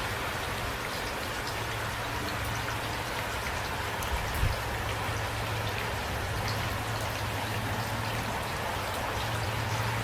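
Steady light rain, with individual drops ticking over an even hiss and a low steady hum underneath. There is one brief low thump a little before halfway.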